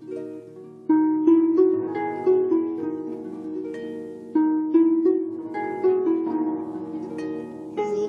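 Harp music: a slow melody of plucked harp strings, each note ringing on after it is struck, with fresh, louder phrases starting about a second in and again about four and a half seconds in.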